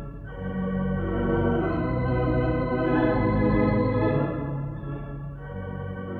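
Hilsdon theatre pipe organ, 3 manuals and 29 ranks, playing sustained chords that change about a third of a second in, swell louder through the middle and ease off near the end.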